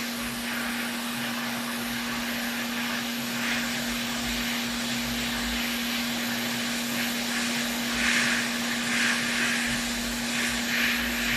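Hot air rework station blowing steadily, a constant hum with a rushing hiss of air, while it heats the loose HDMI port off a PS5 board. The hiss swells a little now and then.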